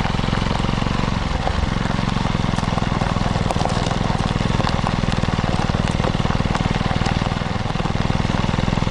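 Exhaust note of a Kawasaki Eliminator 125's single-cylinder four-stroke engine, heard right at the muffler outlet, running steadily at low riding speed. The engine note dips and picks up again about a second and a half in, and once more near the end.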